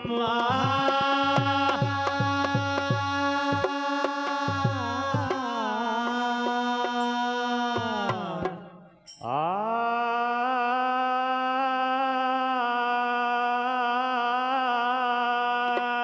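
A male voice holds a long sung note of a bhajan, breaks off and swoops up into a second long held note about nine seconds in. Low hand-drum strokes with a falling pitch accompany the first five seconds.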